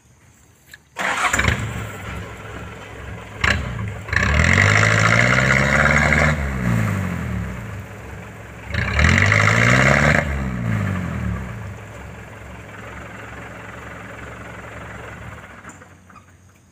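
A light truck's engine starting about a second in, then revved hard twice, its pitch climbing and falling each time, as the loaded truck tries to pull its rear wheels out of deep mud. Between and after the revs it runs more slowly, then goes quiet shortly before the end.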